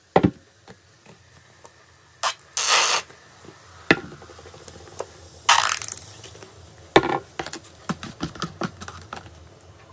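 Carbonated soda fizzing and crackling in a plastic cup, with a few sharp knocks and two short hissing noises. A run of small crackles comes near the end.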